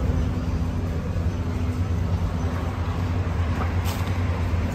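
Steady low drone of a running engine, unchanging throughout, with a faint tick about four seconds in.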